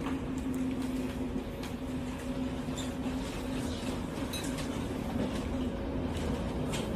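Steady low hum of a ship's machinery under a rush of wind noise, with scattered clicks and rattles.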